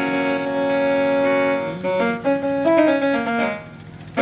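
Instrumental music on a keyboard: long held notes and chords with a short melodic run in the middle. It falls away briefly just before a new chord comes in at the end, as an interlude before a devotional song.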